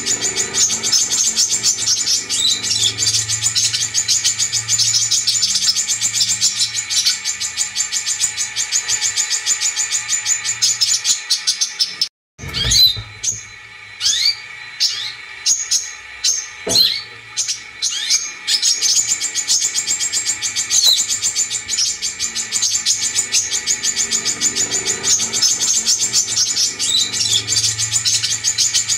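Brown-throated sunbird (kolibri kelapa) song: a fast, continuous, high-pitched chattering trill. About twelve seconds in it cuts out briefly and gives way to a few seconds of separate sharp chirps and rising whistles, then the rapid chatter resumes.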